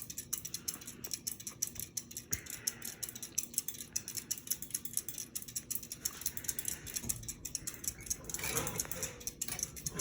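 Harbor Breeze Builders Best ceiling fan running on medium speed, with a rapid, uneven light ticking throughout.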